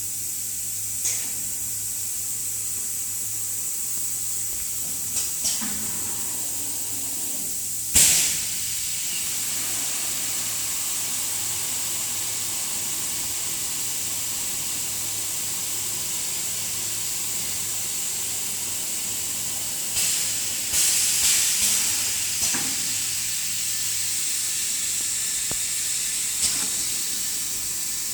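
Liquid filling machine running, with a steady hiss over a low hum. It is broken by short sharp clacks, the loudest about eight seconds in, and a cluster around twenty to twenty-two seconds in.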